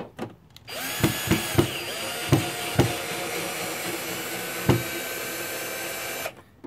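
Cordless drill/driver driving a long Phillips screw through a plastic access-point mounting plate into a wall. The motor spins up under a second in and runs for about five and a half seconds with a steady whine and a handful of sharp clicks, then stops.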